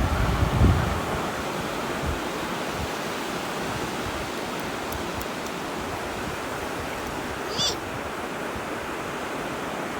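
Sea waves washing onto the beach, a steady rushing, with a low rumble on the microphone in the first second. A brief high-pitched squeak sounds about seven and a half seconds in.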